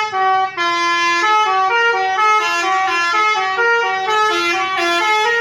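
Multi-tone 'telolet' bus horn playing a quick tune of short notes that step up and down in pitch.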